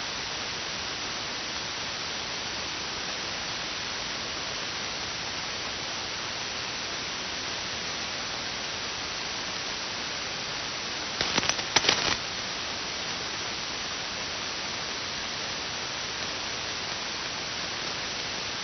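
Steady hiss of 160-metre band noise from an SSB receiver with a wide (about 6 kHz) passband and no station transmitting. A short burst of crackles comes about eleven seconds in.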